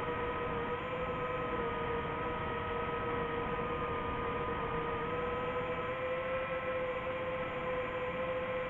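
Small quadcopter drone's motors and propellers running steadily while it hovers: a continuous whirring hum with a whine that wavers slightly in pitch.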